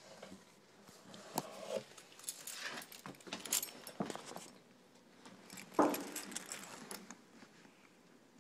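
A cat eating from its bowl: irregular clicks and short crunching, clinking bursts, the loudest a little before six seconds in.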